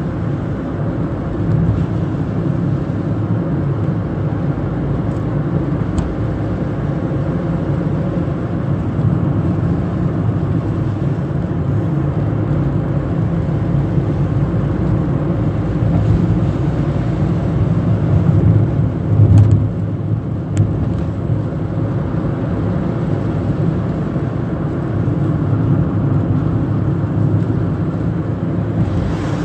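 A car driving, heard from inside: a steady low rumble of engine and road noise, with a short louder swell and a couple of faint clicks about two-thirds of the way through.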